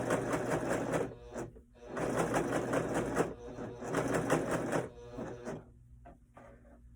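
Husqvarna Viking Huskylock S25 serger running at speed, overlock-stitching and trimming a fabric edge. It runs for about a second, pauses briefly, runs again for about three seconds, then stops.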